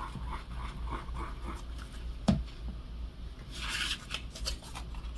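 Paper scraps handled and rubbed by hand on a journal page: soft rustling with a light tap a little past two seconds and a short swish of paper near four seconds.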